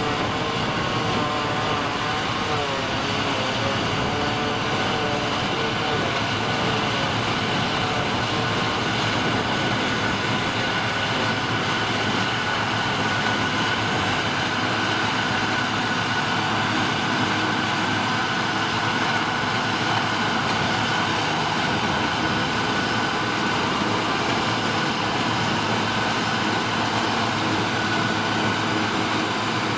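A Ford TW-series tractor's six-cylinder diesel pulling a trailed forage harvester, with a John Deere tractor running alongside, in a steady din of engines under load and the harvester picking up, chopping and blowing grass. A constant high whine runs through it, and the engine note wavers a little in the first few seconds.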